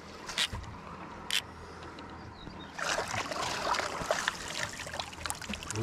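A hooked zander splashing and sloshing in the water as it is netted at the side of a boat. A few sharp clicks come in the first second and a half, and the splashing gets denser and louder from about three seconds in.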